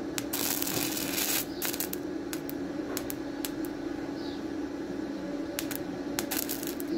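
Carbon arc from a graphite rod taken out of a small battery, crackling and sizzling in irregular bursts against steel sheet, densest in the first second and a half, over a steady hum. The thin rod is glowing red-hot, the state in which it stops welding and only spits sparks.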